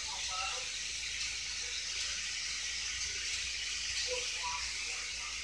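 Steak sizzling steadily on a hot George Foreman contact grill.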